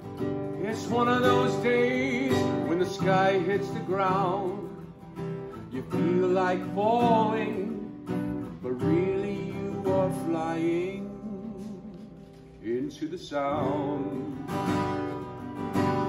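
A man singing long held phrases with a wide vibrato over a strummed ukulele. The voice drops out briefly about three-quarters of the way in while the ukulele carries on.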